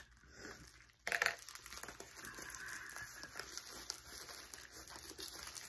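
Padded envelope crinkling and crackling as it is pulled and tugged open by hand, starting suddenly about a second in and going on as a steady stream of small crackles.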